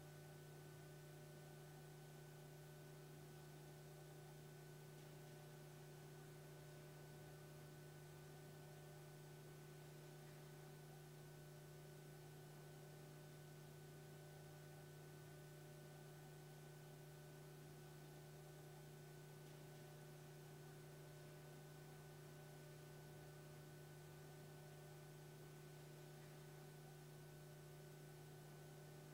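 Near silence: a faint, steady hum with light hiss that does not change.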